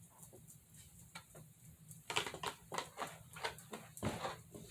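Light plastic clicks and taps of Hot Wheels blister-card packages being handled and shuffled. The clicks are sparse at first and come several times a second from about two seconds in.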